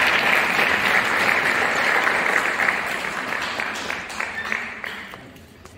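Audience applause, dying away over a few seconds into scattered single claps near the end.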